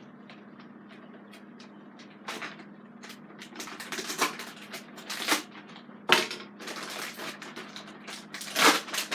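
Plastic vacuum parts and packaging being handled and opened: irregular crackles, clicks and knocks that start about two seconds in.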